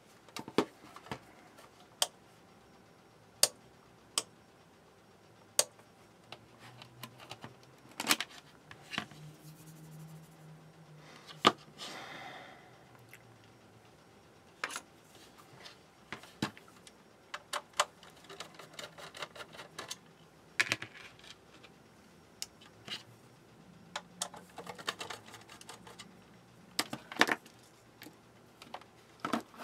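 Scattered sharp clicks and taps of hands handling a plastic set-top box that won't power on, from its buttons, switch and case being pressed and set down, with softer rustling and scraping between them.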